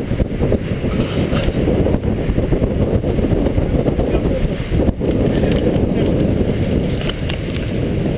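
Wind buffeting the action camera's microphone and mountain-bike tyres rolling fast over a dirt trail on a descent, with scattered clicks and rattles from the bike.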